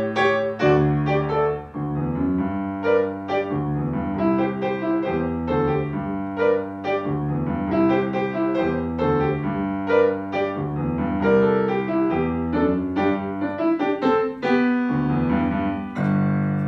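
Steinway grand piano played solo: a quick run of separate melody notes over steady bass notes, closing on a chord struck near the end and held.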